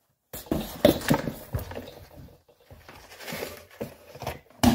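A cat scrabbling and bumping about on a wooden nightstand: a run of irregular knocks, thumps and rustles.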